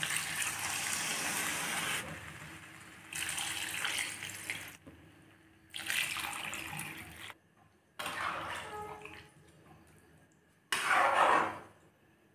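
Water poured into a hot pan of frying curry, splashing in several separate pours of a second or two each, with short breaks between them.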